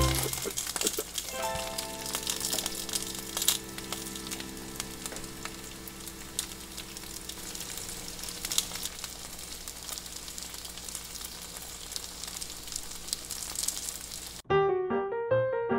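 Skewered Korean rice cakes (tteokkochi) sizzling as they fry in a nonstick pan, a steady hiss with scattered small pops, over soft sustained background music. Near the end it cuts to piano music.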